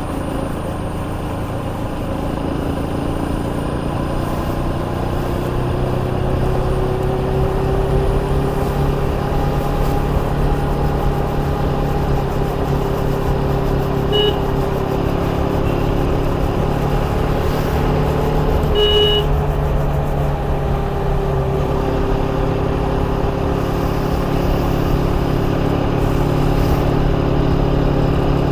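KTM Duke 250's single-cylinder engine running under way, its pitch rising and falling slowly with the revs, over a low rush of wind on the microphone. A horn beeps briefly about halfway through and again some five seconds later.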